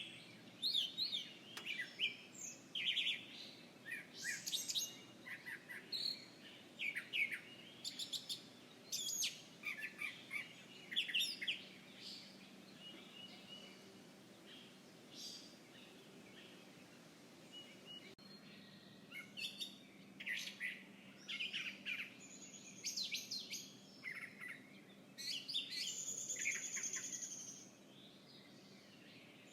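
Small birds chirping and twittering in quick, overlapping short calls, with a thinner spell in the middle and a longer trill near the end, over a faint low steady hum.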